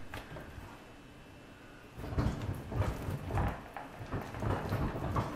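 Chunky, freshly activated glue slime being worked on a countertop: irregular squishing and small knocks that start about two seconds in.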